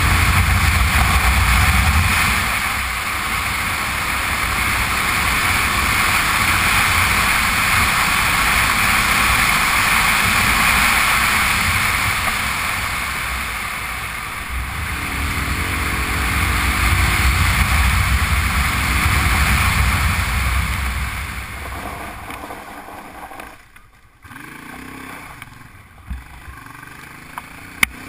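Honda Transalp's V-twin engine running at speed on a gravel road, heard under steady rushing wind and tyre noise on the gravel; the whole sound falls away for a few seconds near the end.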